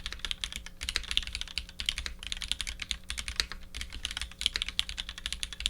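Fast typing on a Matrix 2.0 add custom mechanical keyboard with lubed Vintage Black linear switches, an aluminium plate and GMK keycaps: a rapid, continuous run of key clacks with short pauses between bursts.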